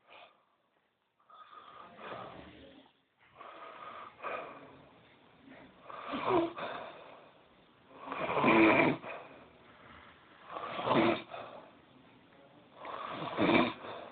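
A person snoring, one snore about every two and a half seconds, the snores growing much louder after the first few.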